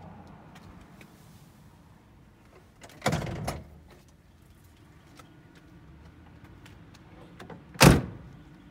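Two heavy thuds from the door of a 1971 Chevrolet Corvette convertible being handled and shut: one about three seconds in, and a sharper, louder one near the end.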